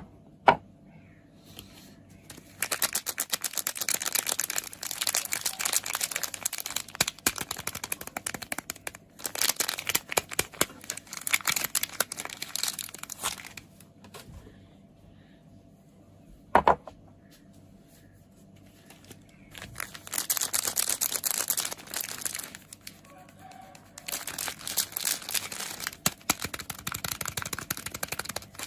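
Soap packaging being handled and unwrapped: long spells of crisp crinkling of the wrapper, broken by quiet pauses, with a few sharp taps or clicks, the loudest about two-thirds of the way through.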